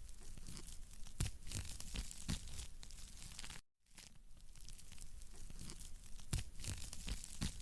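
Wood fire crackling in a fireplace, with a few sharper pops among the steady crackle. The sound cuts out for a moment a little under halfway through, then carries on: the seam of a short looped recording.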